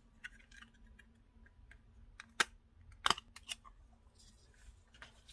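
Plastic eyeshadow compact handled and its lid clicked open: a few light clicks and taps, the loudest two sharp clicks about two and a half and three seconds in.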